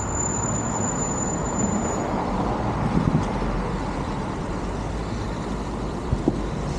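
Passing road traffic: a steady rush of car engines and tyres, with a thin high whine through the first two seconds.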